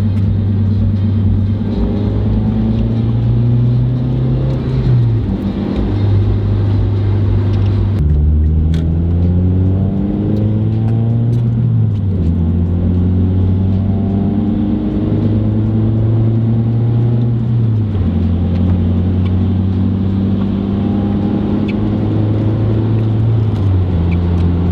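Mazda 3 engine pulling through the gears while driving. Its pitch climbs and drops sharply at each upshift, several times, over steady road noise.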